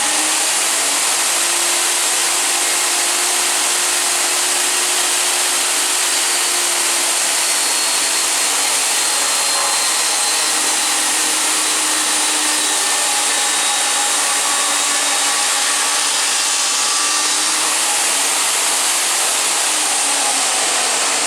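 Table saw running steadily with its blade spinning at full speed: a loud, even rush of noise that holds level throughout.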